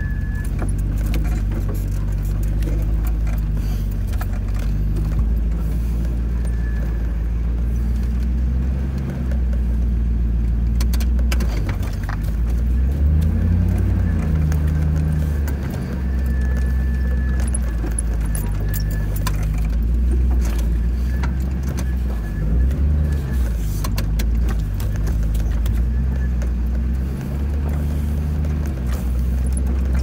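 1997 Land Rover Defender 90's 4.0-litre V8 engine running at low speed over rough dirt, heard from inside the cab, its pitch rising and falling about midway. Clicks and rattles from the cabin run throughout.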